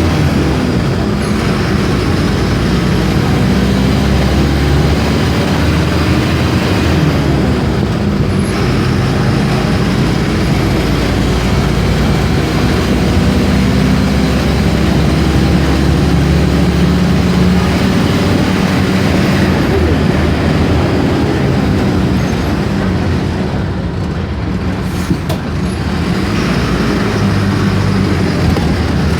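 Mercedes-Benz OF-1418 bus's diesel engine running loudly, its pitch rising and falling a few times, with a sharp click near the end.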